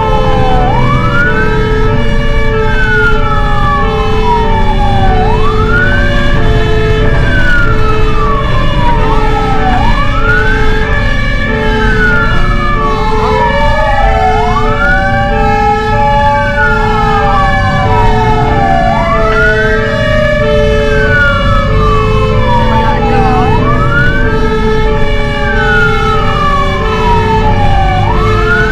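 Fire engine siren in a wail pattern, each cycle rising quickly and then falling slowly, repeating about every four to five seconds over a steadily pulsing lower tone and the truck's low engine rumble. A second, slower siren sweep rises and falls once in the middle.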